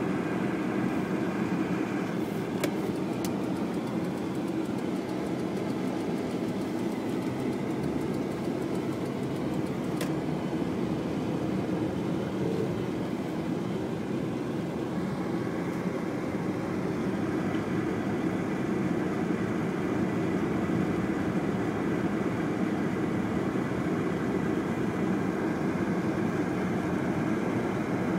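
Steady drone of a car's engine and tyres on a slushy, snowy road, heard from inside the cabin while driving.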